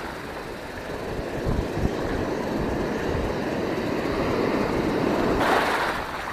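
Ocean surf washing and foaming in the shallows, swelling louder about five and a half seconds in as a wave surges in close. A couple of dull thumps come about a second and a half in.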